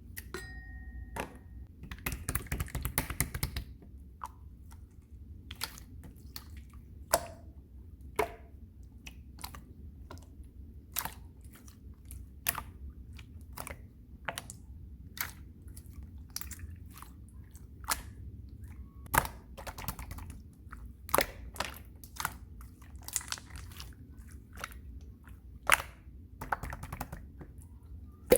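Clear slime being squeezed and stretched, giving scattered sharp, wet pops and clicks, with a denser run of crackling about two to four seconds in.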